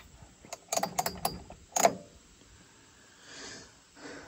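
A few sharp clicks and knocks as a stopped Homelite XL chainsaw is handled and shifted where it rests, clustered in the first two seconds, followed by a soft hiss near the end.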